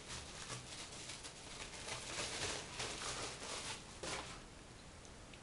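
Faint rustling of packaging being handled, coming and going several times.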